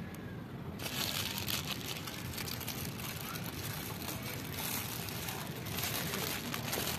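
Thin plastic bag crinkling and rustling as it is handled over a foam food box, starting suddenly about a second in.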